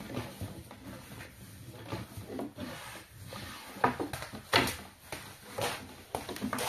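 Irregular rubbing and scraping broken by sharp knocks, the loudest about four and four and a half seconds in.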